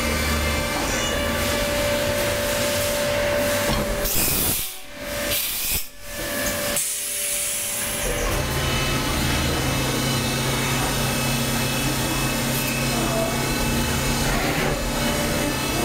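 Cincinnati Milacron Sabre 750 vertical machining center running: a steady mechanical noise with a hiss and a few steady hums. It drops away briefly twice around five to six seconds in, then comes back with a steadier low hum.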